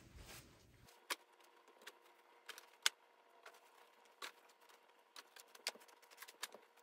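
Faint, scattered light clicks and taps at irregular intervals over a low steady hum, from clothing items being handled.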